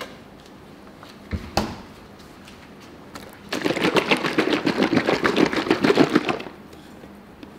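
Two short knocks, then a carton of milk shaken hard for about three seconds, its contents sloshing in rapid, even strokes.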